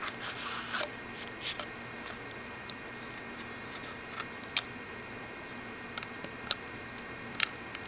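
Folded paper instruction leaflet rustling briefly as it is pulled from the watch box, then about eight sharp single clicks spread irregularly over several seconds as the Casio MRW-200H's plastic case and rotating dive bezel are handled.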